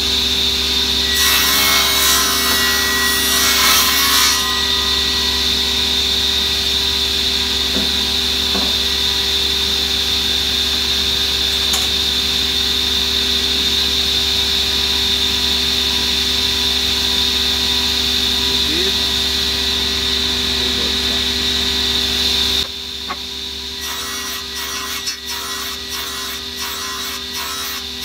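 Table saw running at speed with a steady high whine, its blade cutting into a hardwood block for about three seconds near the start. Near the end the machine sound drops, and a quick series of short scraping strokes follows as wood rubs over the blade.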